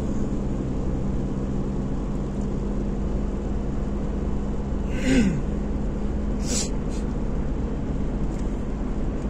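Steady engine and tyre noise inside a car driving on a wet road. About five seconds in, a short vocal sound falling in pitch, then a brief hiss a second later.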